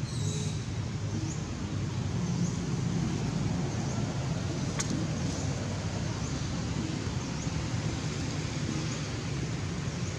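Steady low background rumble, with faint short high chirps now and then and a single sharp click about five seconds in.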